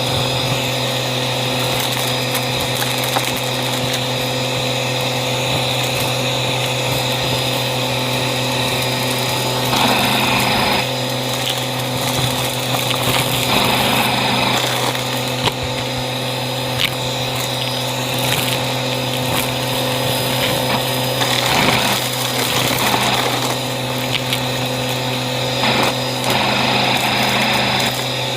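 Bissell CleanView vacuum cleaner running with its crevice tool: a steady motor whine, with the rush of air swelling for a second or two at a time every few seconds, and scattered sharp ticks.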